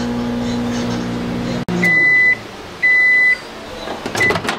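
Microwave oven running with a steady hum, then two long beeps as the heating cycle ends. Near the end comes a brief clatter as the door-release button is pushed and the door opens.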